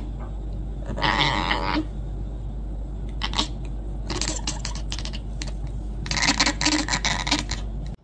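Grey Oriental Shorthair cat chattering: rapid clicking 'ek-ek-ek' runs in about four bursts, the longest near the end.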